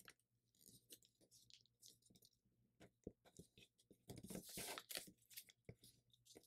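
Faint crinkling and rustling of thin paper being folded and creased by hand, with scattered small crackles and a louder stretch of rustling about four seconds in.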